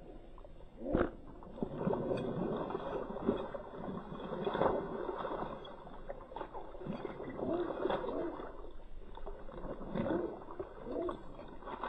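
A giant schnauzer rolling and wallowing in a shallow muddy puddle: water splashing and sloshing under its body, with a sharp splash about a second in.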